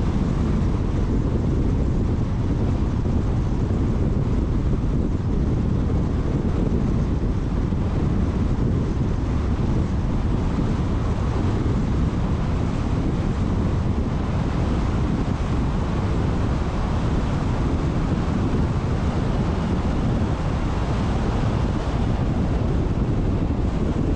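Steady rush of wind and road noise from a car driving at speed, with wind buffeting the microphone.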